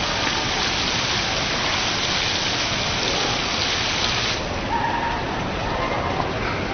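Water streams falling from a digital water-curtain display, a steady hiss; about four seconds in the bright upper part of the hiss drops away as the water stops falling.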